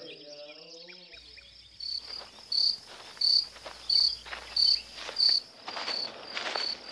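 Cricket chirping in a steady rhythm, about one and a half high chirps a second, starting about two seconds in, over a continuous high insect chorus.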